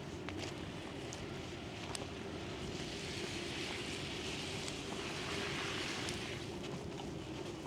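Wind buffeting the microphone in a snowstorm, a steady low rumble, with a brighter hiss that swells a few seconds in and fades about three seconds later, and a few faint clicks.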